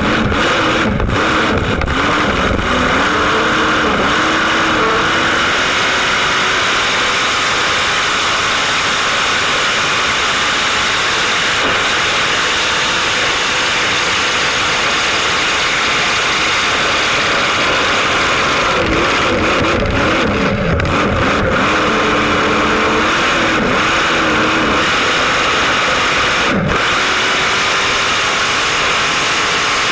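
Race boat engine running hard at speed, a loud steady noise whose engine note wavers up and down near the start and again about two-thirds of the way through.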